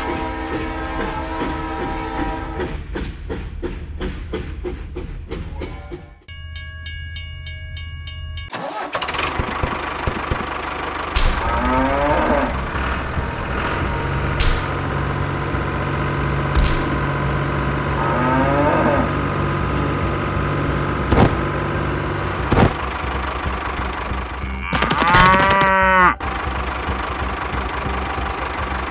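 A vehicle engine sound effect running steadily over background music. It is broken by a few short wavering, sliding calls, the loudest near the end.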